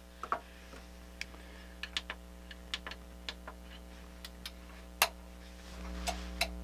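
Sony STR-DE925 stereo receiver, powered on and working with its rear amplifier disconnected, being switched through its functions: a string of small irregular clicks from its buttons and relays, one louder about five seconds in, over a steady mains hum that grows louder near the end.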